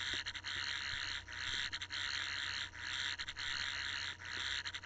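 Toy replica of the 11th Doctor's sonic screwdriver playing its hidden first Easter egg sound through its small speaker: a wavering buzz repeating in pulses with short breaks. This sound is meant to make the screwdriver sound broken or fidgety.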